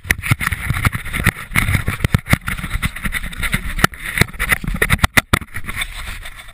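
Dirt bike engine running, with frequent sharp crackles and knocks over it.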